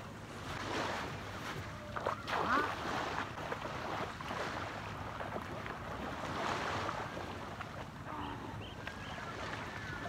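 Seaside ambience: surf washing in steadily, with wind buffeting the microphone.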